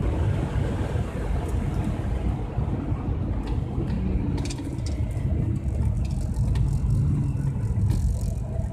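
Car engine running under way with tyre and road noise on a wet track, heard from inside the cabin, with a few sharp ticks in the second half.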